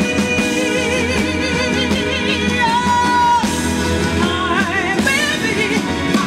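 A woman singing with strong vibrato over a live band with drums and guitar. She holds one long note that ends about three and a half seconds in, then carries on with wavering, ornamented phrases.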